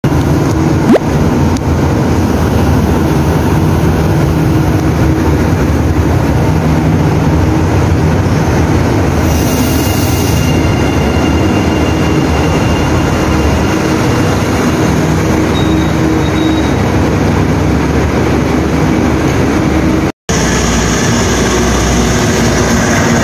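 KTM Komuter electric multiple unit pulling in along the platform, a steady low hum of its traction gear and wheels, with a hiss of about a second some nine seconds in. After a brief cut near the end, the diesel engine of a Thai SRT locomotive is running as it moves off.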